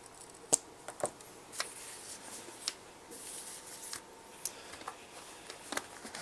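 Multimeter test leads and probes being handled: a series of light, separate clicks and taps, with a stretch of soft rustling near the middle.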